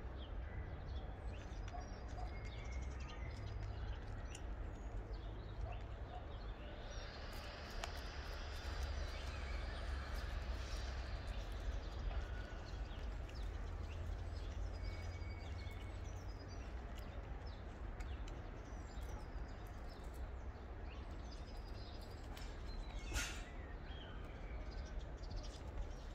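Outdoor ambience: small birds chirping now and then over a steady low wind rumble. A louder rushing noise swells from about seven to twelve seconds in, and a single sharp click comes near the end.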